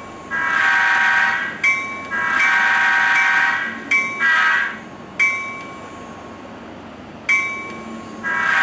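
HO-scale Union Pacific DDA40X model locomotive's onboard sound system blowing its multi-chime diesel horn: two long blasts, one short one, then another long one near the end. Sharp ringing strikes come between the blasts, over a quieter steady running sound.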